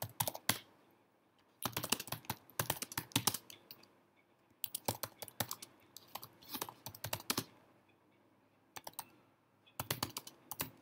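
Typing on a computer keyboard in several quick runs of keystrokes, separated by short pauses.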